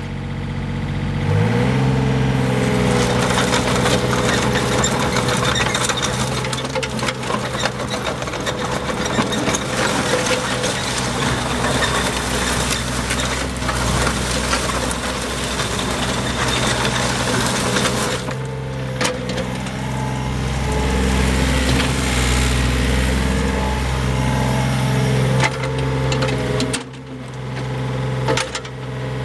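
Yanmar B22 mini excavator's diesel engine revving up about a second in, then running at raised revs with mechanical clatter while the boom and swing are worked. The engine note drops briefly near the end, then picks up again.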